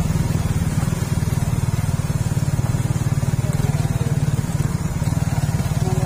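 Motorcycle engine running steadily at low speed, heard from on board the bike, with a rapid, even pulsing and no revving.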